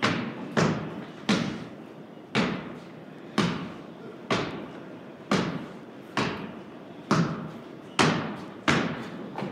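A basketball dribbled on a wooden plank floor, bouncing about once a second, each bounce echoing in the large open barn loft.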